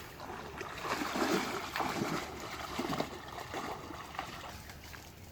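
Pond water sloshing and splashing in irregular bursts as people work in it with a cast net, with faint voices in the background.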